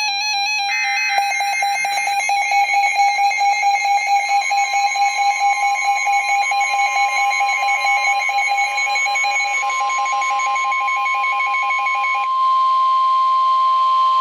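NOAA Weather Radio Emergency Alert System tones: warbling, pulsing data-burst tones of the SAME alert header, joined partway by the steady 1050 Hz warning alarm tone. The alarm tone sounds alone for the last two seconds or so.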